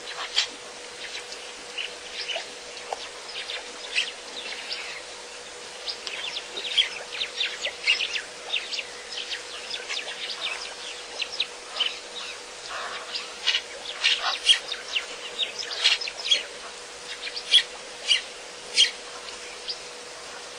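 Birds chirping, with many short calls coming irregularly and overlapping throughout, over a faint steady hum.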